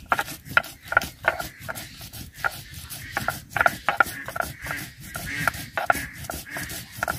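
Spices being ground into paste on a Bengali shil-nora, a stone roller worked back and forth over a flat grinding slab: repeated gritty scraping strokes with short clicks as dry chilies, cumin seed, ginger and whole garam masala are crushed.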